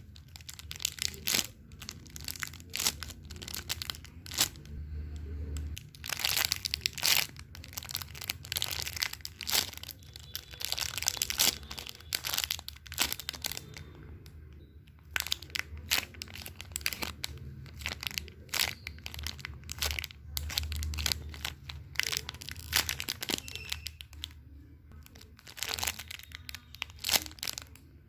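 Close crinkling and crunching handling noise, coming in irregular clusters of rustles with a few brief pauses, over a low steady hum.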